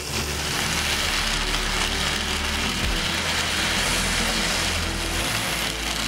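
Model train running past on the track: a steady rushing noise of the locomotive's motor and wheels on the rails that starts suddenly, with faint low keyboard notes underneath.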